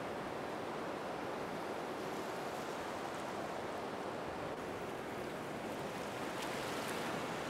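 A steady, even rushing noise with no clear tone in it.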